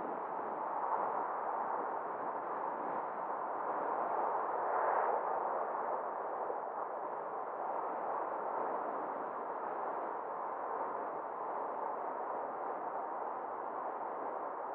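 Steady road and wind noise of a car driving, an even rushing with a slight swell about five seconds in.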